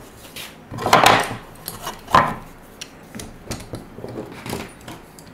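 Knocks and clicks of wooden face-frame parts and a metal bar clamp being handled and set on a workbench. The loudest knocks come about one and two seconds in, with smaller clicks scattered after.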